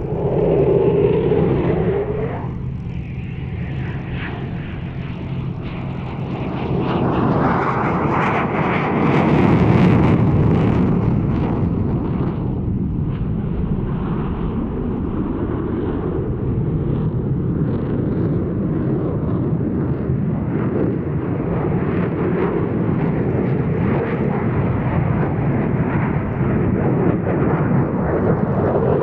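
Jet noise from an RAF Eurofighter Typhoon's twin Eurojet EJ200 turbofans during a flying display, swelling to its loudest about ten seconds in and then holding steady.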